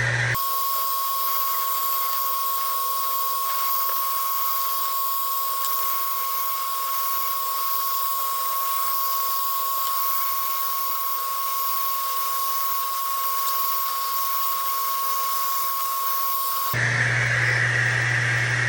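Coshare hand-held hair dryer running steadily at high speed: a high, steady whine over a hiss of rushing air. The sound changes abruptly just after the start and again about two seconds before the end.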